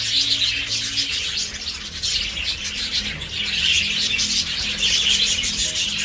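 A flock of budgerigars chattering continuously, a dense run of fast, high twittering chirps.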